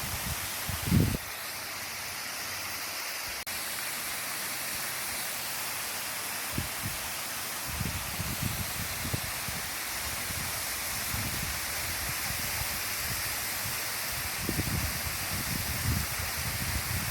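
Waterfall's steady rush of falling water, an even hiss throughout. Wind buffets the microphone in low gusty rumbles about a second in and again several times through the second half.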